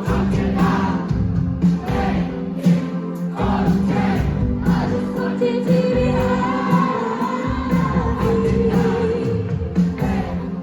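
Live rock band playing a song: sung vocals over guitars, bass and drums hitting a steady beat.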